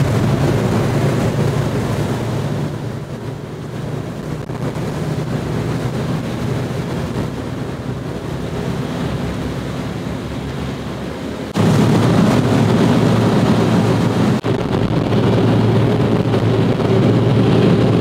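Navy boat's engine running steadily at cruising speed, with wind buffeting the microphone and water rushing past; the sound steps abruptly louder about two-thirds of the way through.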